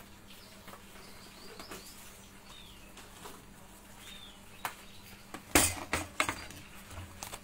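A few short, faint bird chirps, each a quick rising-and-falling call, over a low steady hum. About five and a half seconds in comes a sharp knock, the loudest sound, followed by a couple of lighter clicks.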